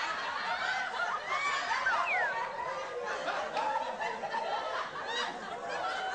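Audience laughter from a laugh track: many people chuckling and snickering at once, without a break.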